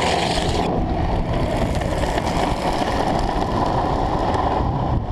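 Longboard urethane wheels rolling fast over rough asphalt, a steady rumble with wind buffeting the microphone; a brighter hiss for the first half second or so.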